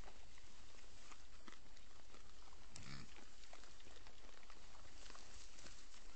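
Wild hogs in a corral trap grunting and rooting at bait, with scattered small clicks and one louder call a little under three seconds in, over a steady hiss from the trap camera's microphone.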